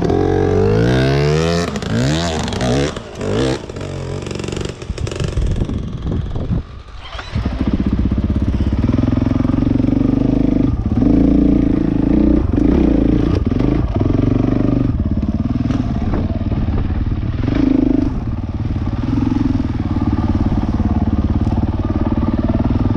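Dirt bike engine revved hard in quick rises and falls for the first few seconds while riding up a rock step, then dropping briefly before running steadily at an even pitch.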